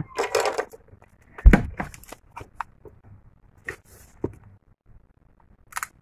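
Handling sounds from a feature phone being worked on by hand: a dull thump about a second and a half in, then a few light plastic clicks and taps as the keypad dome sheet and the phone's front housing are handled and fitted over the board.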